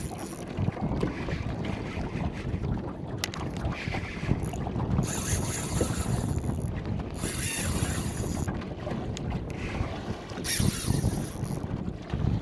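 Wind buffeting the microphone, with three spurts of high buzzing from a spinning reel's drag as a big queenfish strips line.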